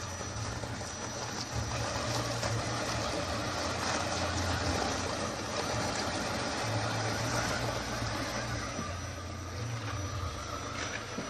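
Scale RC crawler's electric motor and gears whirring steadily as it creeps up a steep dirt-and-rock slope, over a constant background hum.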